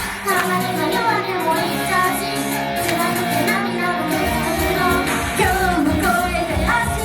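Female idol group singing an upbeat J-pop song live over a loud backing track. The bass and drums drop out and come back in about four seconds in.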